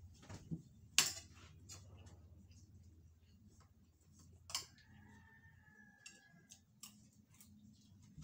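Metal spoon clinking and scraping on a ceramic plate of rice during eating: a sharp click about a second in, another after about four and a half seconds, and a few lighter ticks between.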